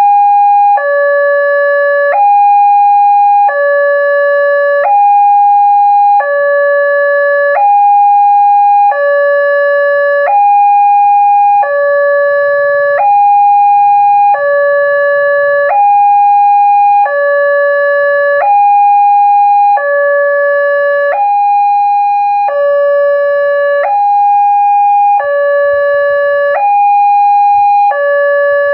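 Railway level-crossing warning alarm sounding from the loudspeaker on the crossing signal. It alternates evenly between a low and a high electronic tone, each held about a second and a quarter, warning that a train is approaching.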